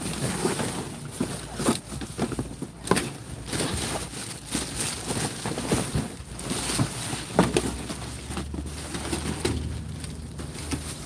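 Cardboard boxes and plastic bags rustling and crinkling as someone rummages through dumpster trash, in a run of short scrapes and crackles. A low steady hum comes in about eight seconds in.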